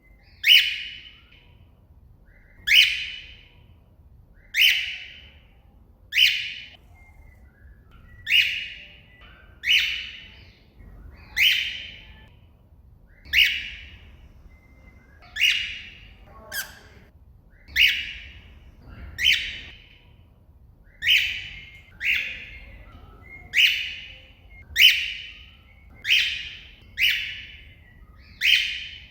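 Cockatiel calling to another bird with short, loud, shrill calls repeated about every one and a half seconds, some eighteen in all.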